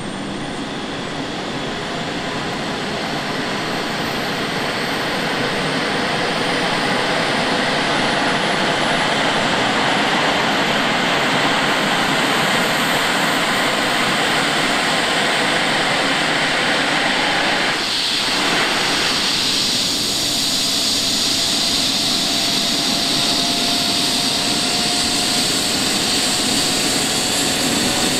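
ADAC air rescue helicopter starting up on the pad: its turbine engines spool up with a high whine that rises in pitch while the main rotor comes up to speed. The sound grows louder over the first several seconds, then settles into steady running.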